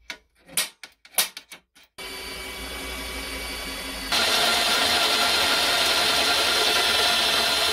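A few short sharp taps, then a cordless drill runs steadily from about two seconds in, stepping up louder about four seconds in as it drills through a sheet-metal plate clamped in a vise. It stops abruptly near the end.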